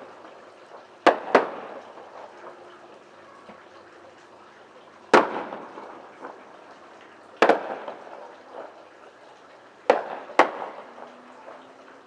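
Fireworks bursting: six sharp bangs, each trailing off in an echo — a close pair about a second in, single bangs about five and seven and a half seconds in, and another close pair near the ten-second mark.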